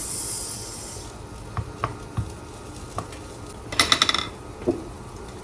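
Mushrooms sizzling in a frying pan while a utensil stirs them. The sizzle is strongest at the start and fades, with a few light knocks and a brief clatter of the utensil against the pan about four seconds in.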